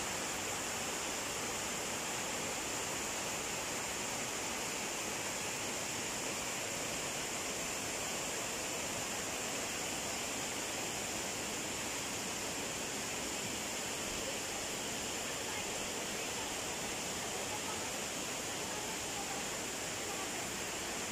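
Steady rush of flowing water, even and unbroken, with a steady high hiss over it.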